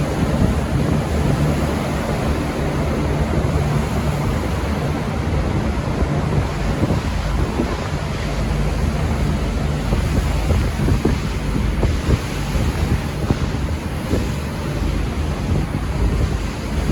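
V/Line VLocity diesel railcar set running out of the station, with a low engine drone and a constant rumble of wheels on rail, heavily buffeted by wind on the microphone.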